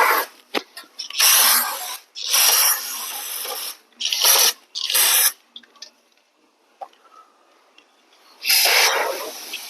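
Cleaner sprayed in short bursts, five of them, the second one longer, with a pause of about three seconds before the last.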